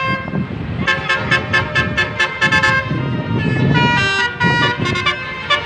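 An Indonesian bus's telolet horn, a multi-tone musical horn, playing quick runs of short notes at several pitches, with a brief pause about three seconds in. A low rumble runs underneath.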